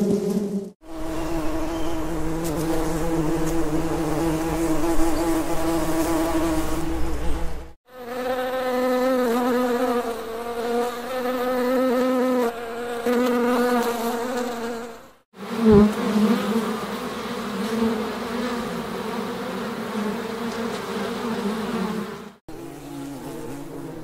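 Bees buzzing in a series of separate recordings, each several seconds long and divided by short breaks. The buzz holds a steady pitch within each recording, a different pitch from one to the next. There is a brief knock about two-thirds of the way through.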